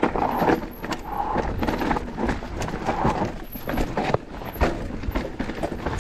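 Mountain bike riding over rough, rocky trail: an irregular run of knocks and clatters from the tyres, chain and frame striking the rocks, over a steady low rumble.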